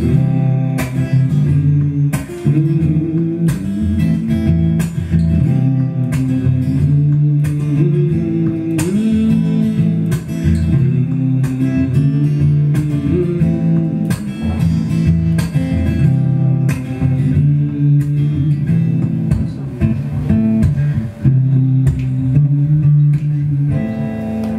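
Solo acoustic guitar playing an instrumental passage of chords, struck about twice a second, settling on a held last chord near the end.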